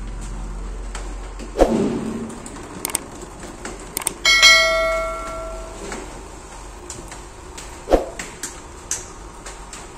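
Subscribe-button animation sound effect: a click, then a bright bell ding about four seconds in that rings out for over a second, with another click near the end.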